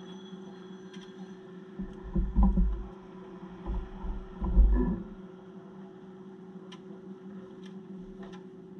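A steady low mechanical hum, with a few loud low rumbles about two to five seconds in, like wind buffeting the microphone.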